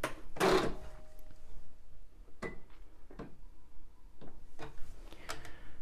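Juki computerised sewing machine being switched on, with a short whirr about half a second in and faint steady tones after it, followed by several light separate clicks as the machine is set up and the fabric positioned; the motor is not yet stitching.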